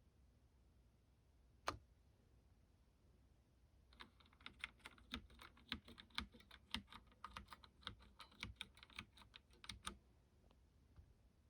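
Typing on the mechanical keyboard of a Freewrite smart typewriter: one single keystroke, then after a pause a quick, uneven run of key clicks lasting about six seconds before it stops.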